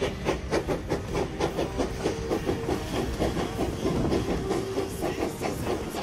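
Steam locomotive chuffing in an even rhythm of about three to four beats a second as it pulls the train along, heard from a passenger car behind it, with the rattle of the cars on the rails.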